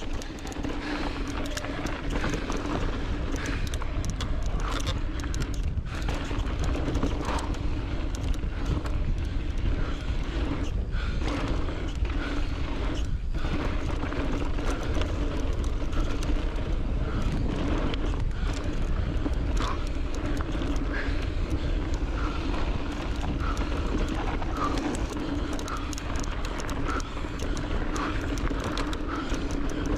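Ride noise from an electric full-suspension mountain bike on a dry dirt and rock trail: wind rush, tyres rolling and crunching, and a steady patter of clicks and rattles from the bike. A steady low hum runs underneath.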